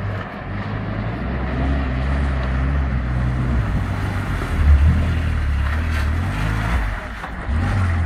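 UAZ-452 van's 2.4-litre petrol engine working hard as it wades through a flooded stream and climbs out onto the bank, its pitch rising and falling with the throttle, over the splash of water around the wheels. The engine eases off briefly near the end and picks up again.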